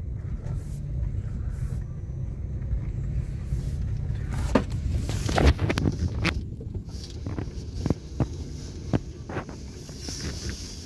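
Maruti Suzuki Baleno's petrol engine running low and steady, heard from inside the cabin, as the car moves off slowly in first gear on light throttle with a learner at the wheel. A few sharp knocks come in the middle as it rolls over the bumpy dirt ground.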